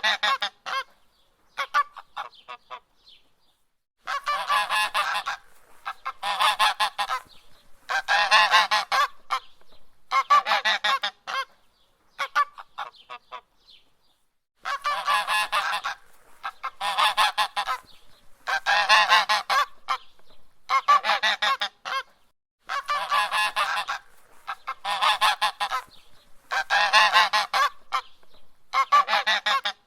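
Goose honking over and over, in runs of calls about a second long that come every couple of seconds, with pauses about three seconds in and again around the middle.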